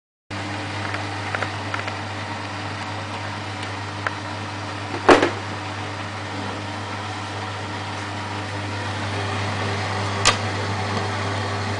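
A Beko WMA642 washing machine runs with a steady low motor hum while the drum turns at low speed in its anti-tangle phase before the spin. The hum starts abruptly, and two sharp knocks come about five seconds apart, the first the loudest.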